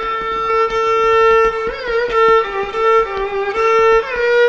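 Violin playing long held notes, with a short slide in pitch, then swinging back and forth between two neighbouring notes.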